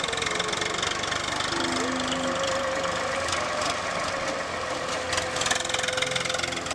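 Swaraj farm tractor's diesel engine running steadily as it drives along pulling a trailer.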